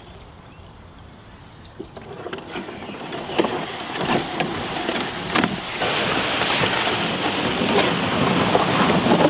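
Dry reed stems rustling and crackling against a canoe's hull and bow as it pushes into a reed bed, with many sharp snaps. From about halfway, a denser, steady scraping rustle as a canoe hull is dragged over long grass.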